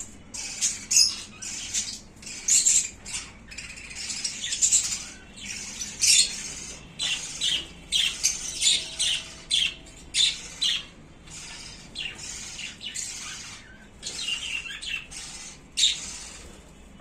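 Several budgerigars chattering, with many short, harsh squawks and chirps one after another.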